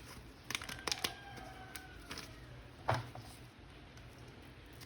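Small clicks and knocks of a plastic action figure and its packaging being handled, with a louder knock about three seconds in.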